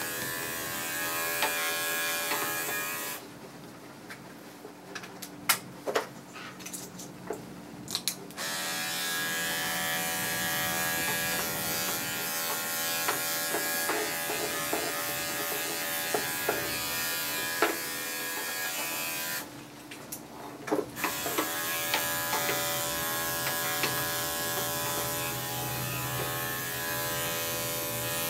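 Electric dog grooming clippers running with a steady buzz as they shave the dog's coat. The buzz stops twice, for about five seconds starting around three seconds in and briefly around twenty seconds in, with a few light clicks and knocks in the pauses.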